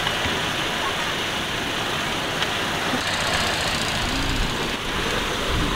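Car on the move, heard from inside: steady engine and tyre noise, with a low bump near the end.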